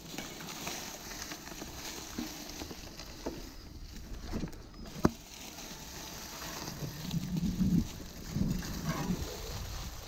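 Mountain bike rolling over a bumpy grassy forest track: tyres swishing through the grass and the bike rattling over the ground, with a sharp click about five seconds in and heavier bumps and thuds from about seven seconds.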